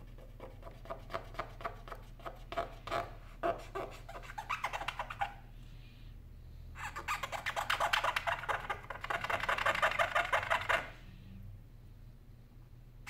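A cotton swab scrubbed back and forth inside an opened iPhone 7 housing: quick scratchy strokes, a short pause, then about four seconds of louder, faster rubbing.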